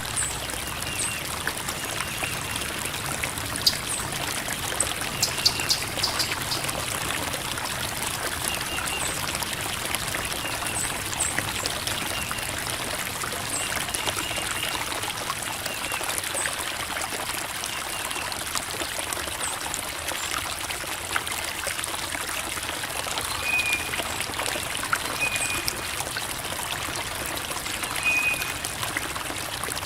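Creek water running and trickling over rocks, a steady babbling wash, with short high chirps dotted through it.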